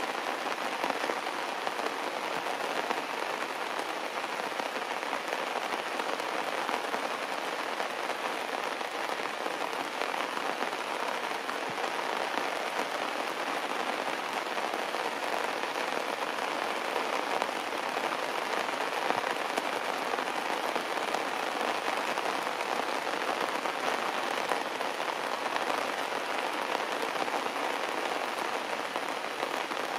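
Heavy rain falling steadily on stone steps and leaves, a constant patter.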